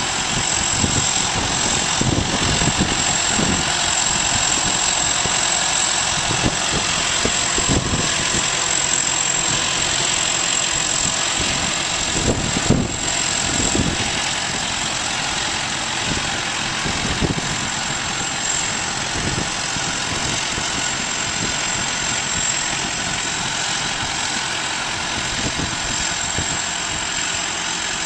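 Heavy farm machinery running steadily, with a constant high-pitched whine above the engine sound.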